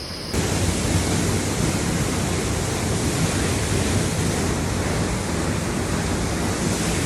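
Waterfall rushing close by, a loud, steady roar of falling water that comes in abruptly just after the start.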